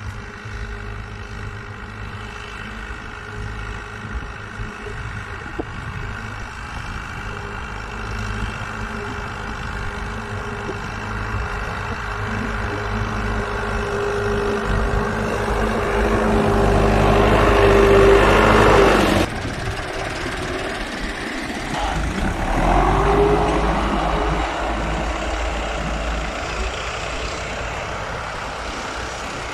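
Fiat 640 tractor's four-cylinder diesel engine running under load, pulling a Raja plough through the soil. It grows louder as the tractor comes close, cuts off suddenly about two-thirds of the way through, then swells again more briefly.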